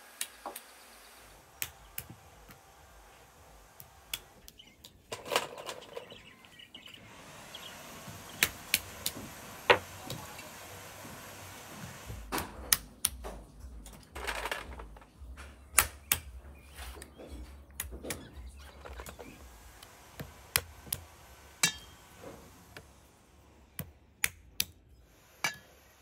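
Walnuts being cracked with a small hammer on a wooden stump: sharp cracks and knocks at irregular intervals, often two or three in quick succession.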